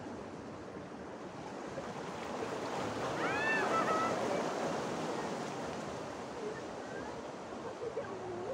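Sea waves washing over a rocky shore, a steady rush that swells about three seconds in and then eases. A brief high chirp sounds near the top of that swell.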